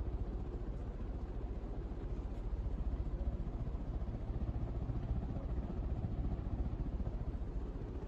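Harbor Breeze Builders Best ceiling fan with a 172 mm motor running at speed: a steady whir of the spinning blades over a low rumble that flutters quickly and evenly.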